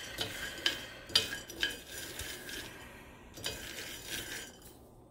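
Coffee beans being stirred with a spoon in a small cast iron skillet while roasting: a dry rattling scrape with scattered sharp clicks that stops shortly before the end. The beans have not yet reached first crack, so the clicks are beans knocking against the pan rather than cracking.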